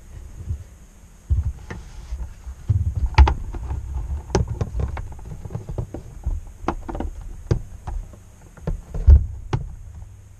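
Handling knocks and thuds from a GW Instek benchtop function generator's case as it is lifted, tilted and set back down on a cutting mat, its carrying handle swung down into a stand. The knocks are irregular, with the loudest about three seconds in and about nine seconds in.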